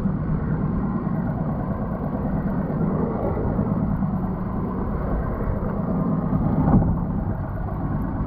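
Mercury outboard motor running steadily at low speed while the boat is manoeuvred. There is a single short thump near the end.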